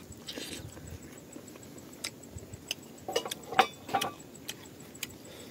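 A person chewing and eating by hand, with scattered wet mouth clicks and smacks, the loudest a little over three and a half seconds in.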